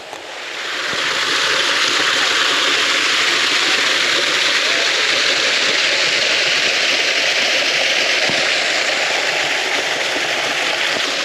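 Water running steadily from the spouts of an ancient stone fountain into its basin, a loud, even rush that swells over the first second or so.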